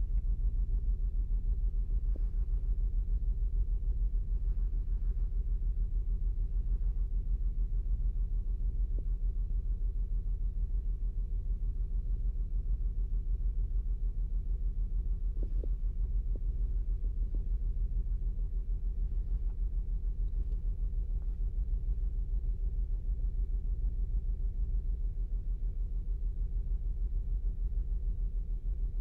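2008 Saturn Outlook's 3.6-litre V6 idling with a steady low rumble. This is a cold-start idle, when the engine is known to misfire on cylinder 1 (code P0301).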